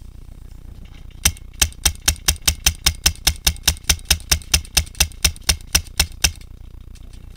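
Paintball marker firing a steady string of about two dozen sharp shots, about five a second, for some five seconds, loud and close.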